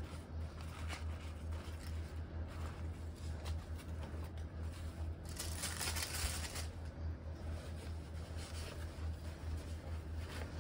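A fabric harness pouch and its packing stuffing being handled: soft rustling and scraping with small clicks, and a louder burst of rustling about five to six seconds in, over a steady low hum.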